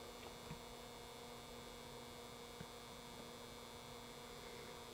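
Faint steady electrical mains hum with light hiss: quiet room tone, broken only by a couple of tiny ticks.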